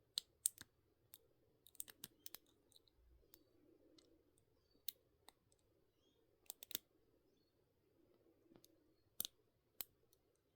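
A lock pick working the pins inside a lock: sparse, irregular small clicks.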